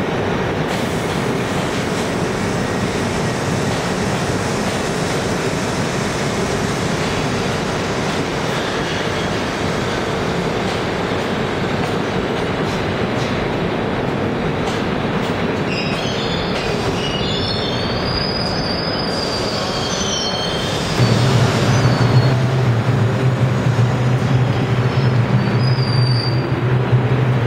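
New York City Subway train running along the platform: a steady rumble of wheels on rail, with high wheel squeals about two-thirds of the way through. About three-quarters through, the sound changes abruptly to a louder, steady low hum from an R142 train standing at the platform.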